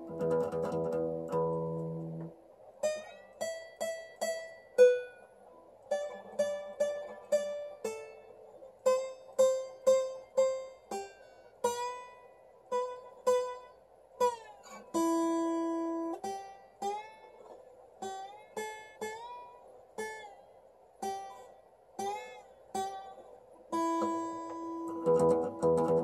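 Acoustic guitar played slide-style with a chicken-bone slide: a strummed chord, then a slow line of single plucked notes with the pitch sliding into and between several of them, and another strummed chord near the end.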